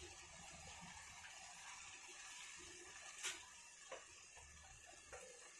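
Thick curry gravy simmering in an open pan: a faint steady hiss with three soft pops, the loudest about three seconds in.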